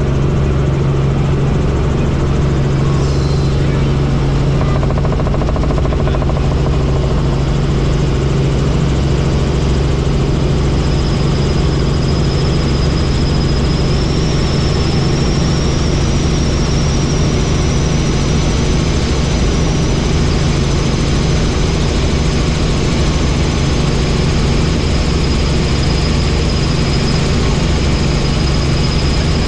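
Helicopter in flight: steady, loud rotor and engine noise with a deep hum, joined about a third of the way in by a thin high turbine whine that drifts slightly up and then holds steady.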